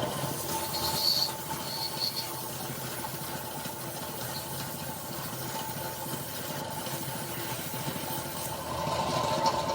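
A machine running steadily, a constant hum over a fast, even rattle, with two brief high squeaks about one and two seconds in.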